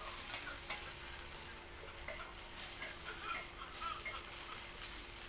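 Skewered chicken hearts sizzling over hot charcoal on a wire grill rack, with scattered light clicks and ticks.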